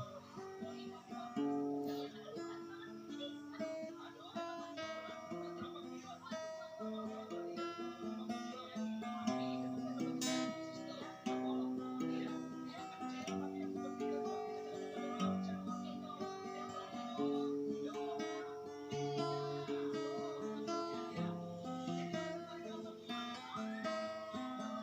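Instrumental break in a song: acoustic guitar playing a chord progression, without singing.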